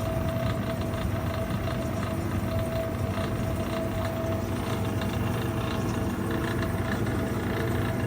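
Vintage Electrohome dehumidifier running, its refrigeration compressor and quite noisy fan making a steady hum with a higher tone held over it. The compressor is running on a top-up charge of R600a in place of the flat R12.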